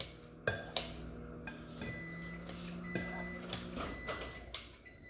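A few light knocks and clinks of kitchen utensils and dishes over a steady low electrical hum.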